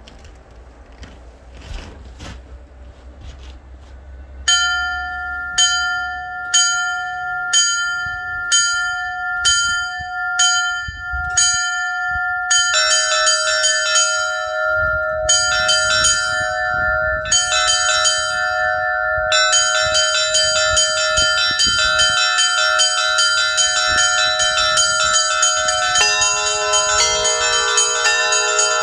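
Russian Orthodox church bells ringing a daytime peal. About four seconds in, a single bell begins striking about once a second. More bells join, building to a fast, dense peal of several bells, with deeper bells coming in near the end.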